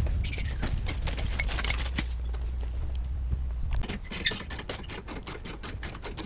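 Hand ratchet clicking in quick, even strokes from about four seconds in, as rusted bumper bolts are undone; before that, a low rumble with scattered knocks.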